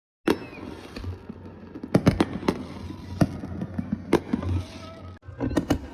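Fireworks going off: sharp bangs at irregular intervals, several in quick succession around two seconds in and again near the end, with crackling between them.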